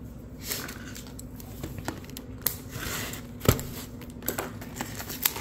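A cardboard hobby box of baseball cards being handled and opened: crinkling and tearing of its wrapping with scattered clicks and scrapes, and one sharp knock about three and a half seconds in.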